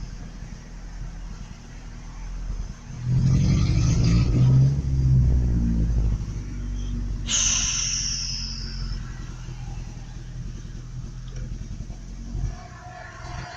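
Truck engine idling roughly, revved for about three seconds a few seconds in, then dropping back to a rough idle. A brief high squeal, falling in pitch, cuts in about halfway through. The engine keeps dying when put in gear, which the driver thinks is a sign it is almost out of gas.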